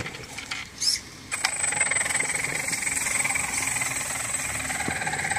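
Electric Traxxas Slash 4x4 RC truck on oversized monster truck tires driving, its motor and drivetrain making a steady whine with a rattly mechanical chatter. The sound drops away briefly at the start, swells once about a second in, then picks up again at about a second and a half and runs on steadily.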